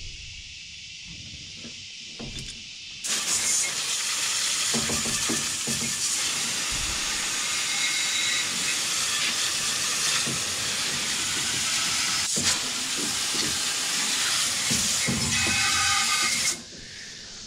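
Garden hose spray nozzle rinsing degreaser off a truck's engine bay: a steady hiss of water spray that starts suddenly about three seconds in and cuts off shortly before the end.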